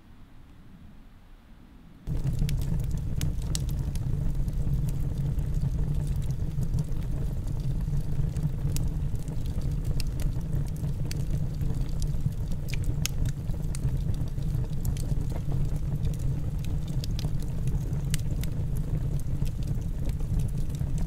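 A wood stove fire crackling in sharp irregular pops over a steady low rumble, starting suddenly about two seconds in.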